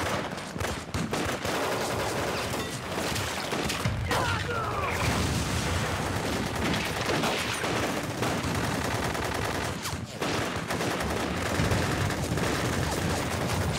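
Continuous battle gunfire: many rifle shots overlapping in a steady fusillade, with a brief shout about four seconds in.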